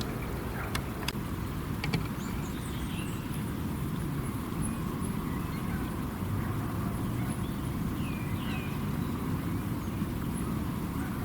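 Small birds chirping now and then over a steady low rumble, with a few sharp clicks in the first two seconds.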